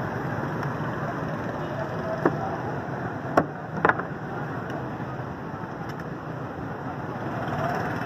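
Steady hum of street traffic, with three short sharp clicks between about two and four seconds in.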